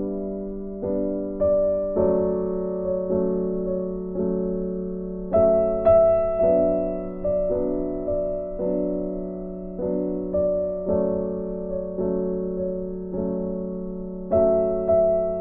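Background music: a soft piano piece with notes struck at an even, gentle pace, each fading away.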